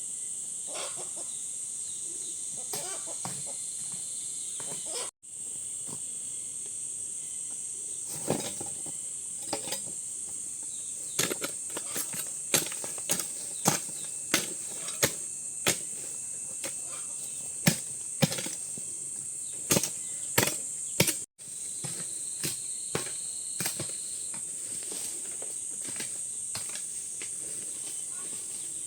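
Steady high-pitched insect chorus. From about eight seconds in, a run of irregular sharp knocks comes every half second to a second, then stops a little after twenty seconds.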